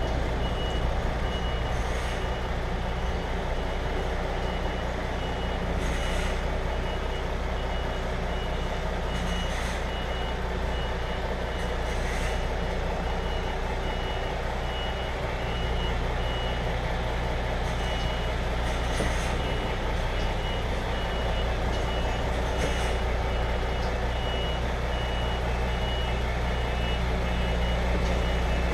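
A vehicle reversing alarm beeping in a steady, regular, high-pitched series over a constant low engine hum, with a few short knocks or hisses every few seconds.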